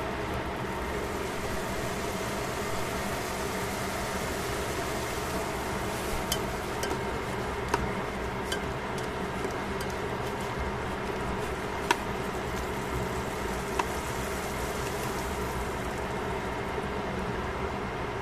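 Cabbage, carrot and mushrooms sizzling in a stainless steel pan over a steady hum. Tongs click sharply against the pan a few times in the middle.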